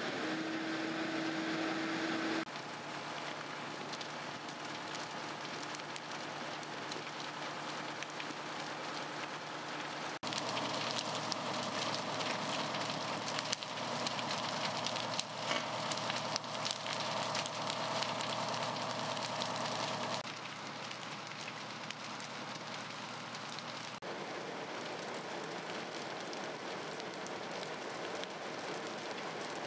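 Burning wood-frame house, the fire hissing and crackling with scattered sharp pops, over the steady hum of fire-truck engines running.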